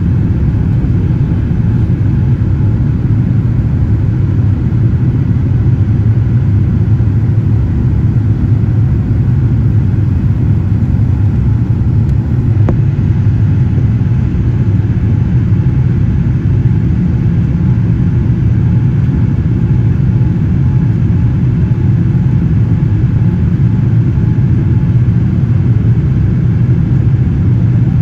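Steady low drone of a Boeing 787-9's engines and the rush of air past the fuselage, heard inside the passenger cabin in flight.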